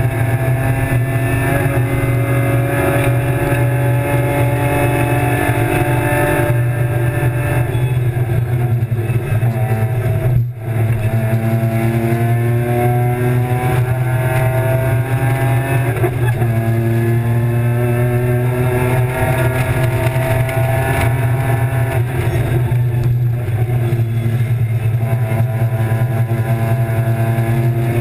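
In-car sound of a BMW E36 325's M50 straight-six racing at full throttle, the engine note climbing in pitch and dropping back at gear changes several times, with a brief cut about ten seconds in.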